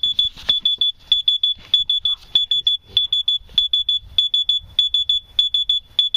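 Smoke alarm sounding a loud, high-pitched electronic beep in rapid clusters of about four short beeps, repeating without a break.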